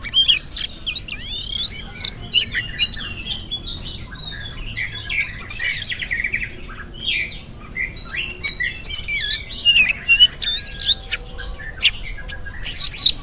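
Oriental magpie-robin singing a fast, varied song of loud whistles, rising and falling slurred notes and harsh chattering calls, with barely a pause.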